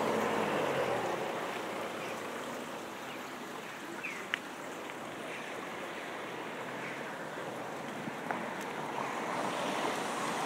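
Steady rushing outdoor noise, with a passing vehicle's engine dying away in the first second. There are a few faint high chirps and one sharp click about four seconds in.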